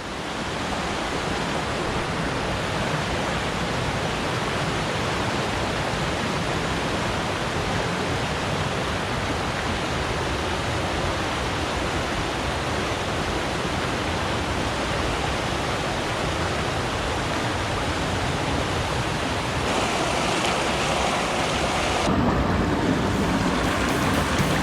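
Steady rush of fast-flowing mountain stream water, an even, unbroken noise. Music comes in near the end.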